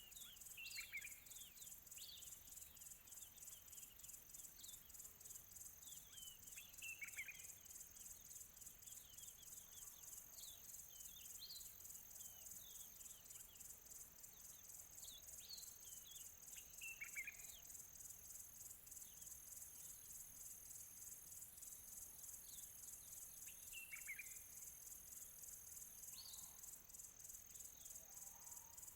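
Faint countryside night-and-field ambience: a steady chorus of crickets chirping in a rapid high pulse, with scattered distant bird calls, short chirps, several sliding downward in pitch.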